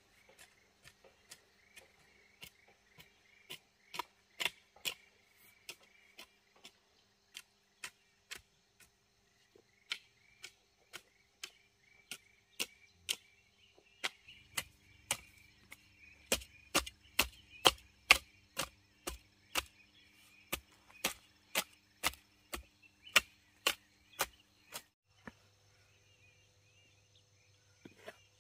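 Chopping: a long series of sharp, separate strikes, roughly one or two a second, coming faster through the middle and stopping about three seconds before the end. Insects chirp faintly underneath.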